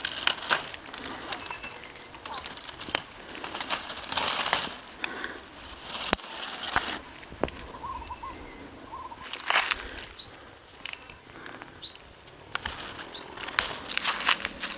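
Leaves and stems rustling and crackling as wild flowers are pulled and gathered by hand, in repeated bursts with a few snaps. A bird gives several short rising chirps.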